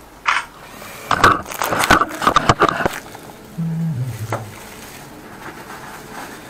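Corrugated plastic suction hose at an opened floor drain: a run of crackling and knocking noises for about two seconds, then a short low hum that steps down in pitch.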